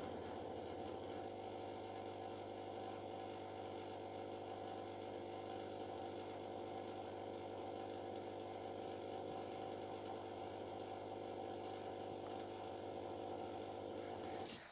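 Samsung WF6450N7W washing machine's drain pump humming steadily, then cutting off suddenly near the end. The machine is failing to drain: the owner suspects the pump cannot start because water gets in past the impeller.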